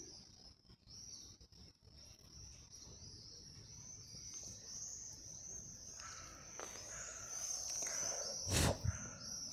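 Steady, high-pitched chirring of insects in the grass, with a single dull thump near the end.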